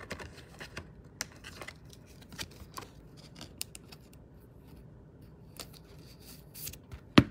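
Trading cards being handled and flicked through by hand: scattered light clicks and short rustles of card stock, with two sharp, loud clicks close together near the end.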